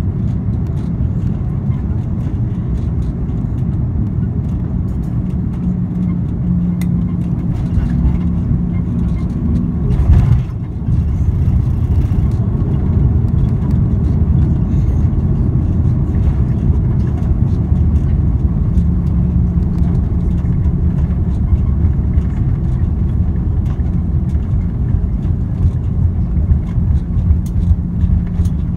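Steady low roar of an Airbus A340-300 cabin on landing, with one loud thud about ten seconds in, typical of the main wheels touching down, followed by the slightly louder rumble of the landing roll.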